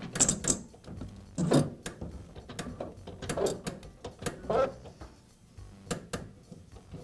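Plastic motor housing being pushed and worked onto a table saw's motor and gearbox by hand: irregular clicks, knocks and scraping of plastic against metal parts.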